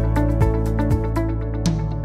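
Instrumental background music with held notes over a steady bass and a regular beat of about two strikes a second.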